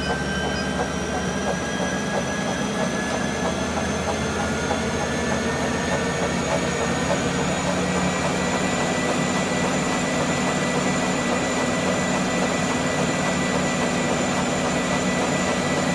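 NoblePro Elite E8i treadmill motor and running belt accelerating to top speed, 20 km/h. A steady mechanical whir with a whine that rises in pitch and levels off about halfway through, once the belt is up to speed.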